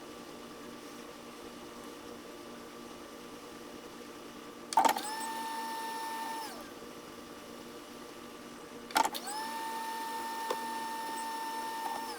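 A small electric motor starts with a click and whines steadily at one pitch, then winds down after about a second and a half. A few seconds later it starts again with a click and runs about three seconds before winding down near the end.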